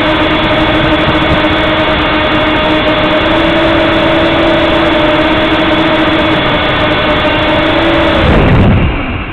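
Heli-Max 1Si quadcopter's motors and propellers whining steadily, loud and close to its onboard camera. About eight seconds in the pitch drops steeply as the motors spool down and the quad lands.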